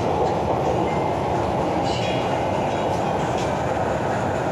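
MTR Island Line Q-Train metro car running underground, heard from inside the passenger car: a steady rumble of wheels and running gear.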